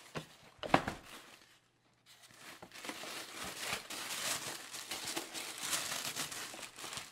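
Dark wrapping over a pair of sneakers crinkling and rustling as hands pull it open inside the shoebox. A single sharp tap comes about a second in, just before the rustling.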